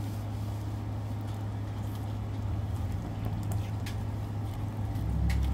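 Steady low hum, with a few faint soft clicks of homemade slime being squeezed and kneaded by hand.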